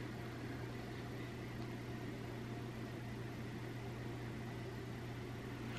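Steady low hum with a faint even hiss: background room tone, with no other events.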